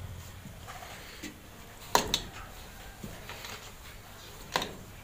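A few sharp clicks and knocks, the loudest about two seconds in, another just after it and one more near the end, over a faint steady background.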